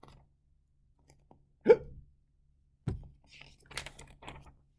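A man voicing a loud, sharp 'hic!' hiccup about a second and a half in. It is followed by a sudden shorter sound and a few soft clicks and rustles.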